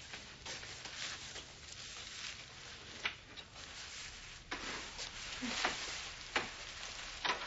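Rustling with a few sharp clicks as a person in a disposable isolation gown walks into the room.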